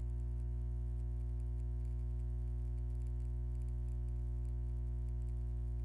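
Steady electrical mains hum: a constant low drone with a stack of evenly spaced overtones.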